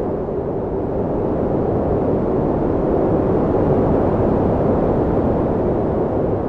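Strong arctic wind blowing steadily, a deep low rushing noise that swells slightly and eases, with a faint howling tone in it.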